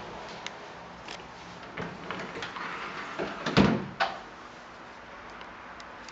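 A hinged door opened by its knob: a few light clicks, then a louder clunk about three and a half seconds in and another knock half a second later.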